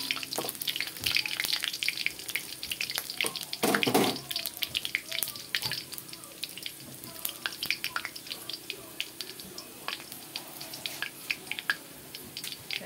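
Chopped shallots frying in hot oil in a wok, sizzling with frequent crackles and pops. A spatula stirs them at first, and the popping thins out after a few seconds.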